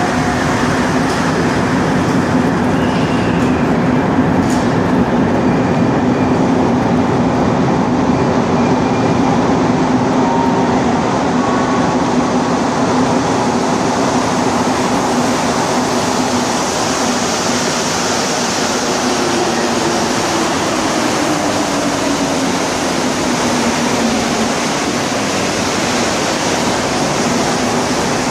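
Rubber-tyred Montreal metro trains at a station platform: a steady, loud rumble and whir as an MR-73 train pulls out. In the second half a faint tone falls slightly in pitch, and another train is running in by the end.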